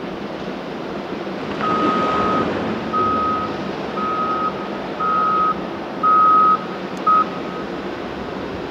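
Reversing alarm of a Caterpillar 988K XE wheel loader beeping about six times, roughly once a second, starting about a second and a half in, as the loader backs away from the rock pile. Its engine runs steadily underneath.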